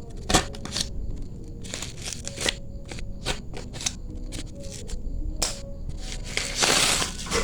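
Packaging being handled and opened: a string of sharp crinkles and clicks, turning into a louder, continuous rustling crinkle in the last second or so.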